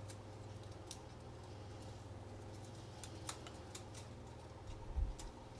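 Scattered light clicks and ticks of a coiled dryer heating-element wire being handled and fitted into its housing, over a steady low hum, with a dull thump about five seconds in.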